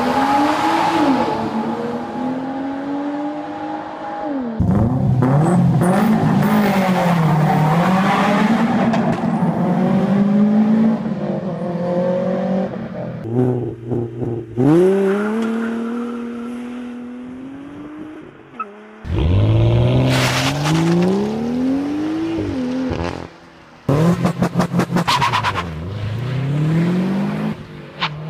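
Several different cars' engines and exhausts revving, one after another, each rev rising and falling in pitch, broken by abrupt cuts between clips. Near the end comes a rapid stutter of pops from an exhaust, about ten a second, followed by further revving.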